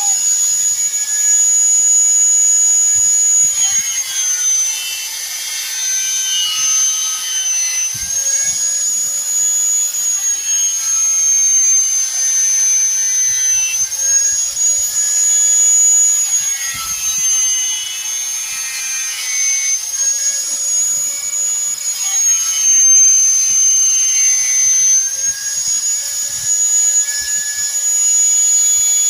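Small high-speed power tool running with a steady high whine, its pitch dipping briefly every few seconds as it comes under load.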